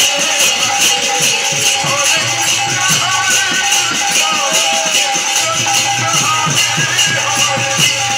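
Devotional kirtan music. Brass hand cymbals clash in a fast, steady beat over khol drum strokes and a droning harmonium, with a man's singing voice carrying the melody from about two seconds in.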